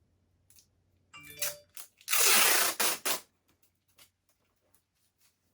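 Sellotape pulled off the roll: a few short rasps, then one loud rip lasting about a second, about two seconds in.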